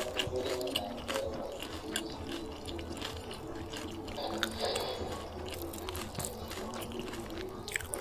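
Wet clicks and crackles of shrimp being eaten by hand: shells cracking, fingers and chewing. Faint voices run underneath.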